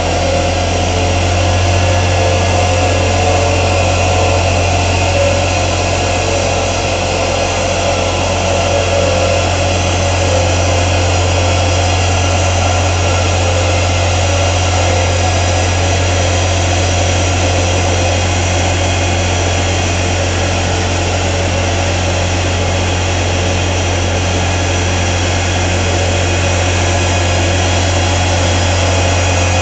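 Truck running at constant speed on a chassis dynamometer, its engine and long multi-section driveshaft turning steadily: an unchanging deep hum with a steady mechanical whir above it.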